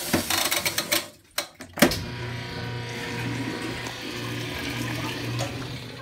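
Whirlpool top-loading washing machine's timer dial clicking rapidly as it is turned to the spin cycle, then a sharp clunk about two seconds in. After that the machine runs with rushing water and a low motor hum that pulses on and off as the spin cycle starts.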